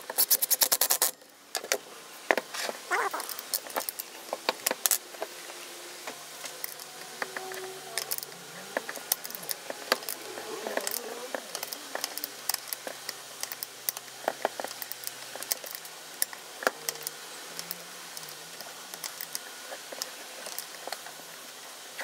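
Plastic and metal parts clicking and rattling as a plastic handle is fitted onto an angle-grinder chainsaw attachment, with a dense run of clicks in the first second and scattered clicks after.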